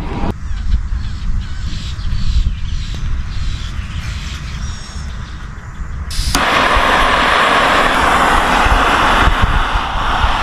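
Small gas-canister camp stove lit about six seconds in: a click, then the burner's steady, loud hiss. Before it, light handling clicks over a low rumble.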